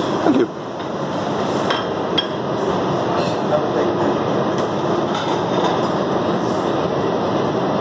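Automatic pancake machine running: a steady mechanical rumble from its conveyor belt, with a brief squeal about half a second in and a few light clicks.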